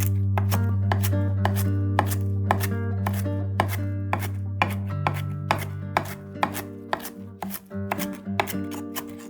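Kitchen knife chopping on a cutting board: a steady run of sharp strokes, about two a second, over a held low music chord that fades out.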